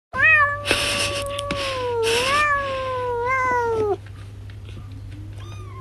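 A cat giving one long, drawn-out meow of about four seconds. The pitch wavers, then falls and stops abruptly. A faint short mew follows near the end.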